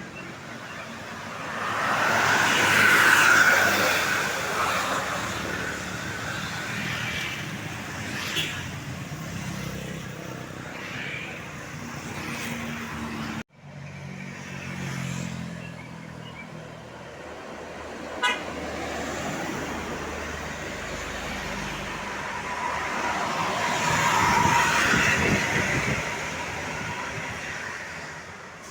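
Road traffic with large vehicles passing close, the sound swelling and fading as each goes by, about three seconds in and again about twenty-five seconds in, over a running engine hum; horns toot among the passing traffic. The sound breaks off abruptly about halfway through.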